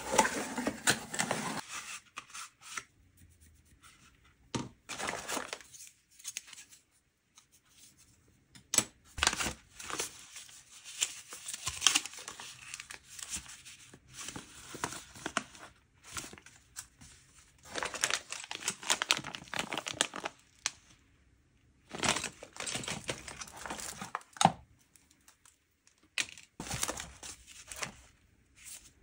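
Hands opening a small cardboard box and handling the paper and plastic-bagged parts inside: irregular bursts of rustling and crinkling with short quiet pauses between, and a few sharp clicks.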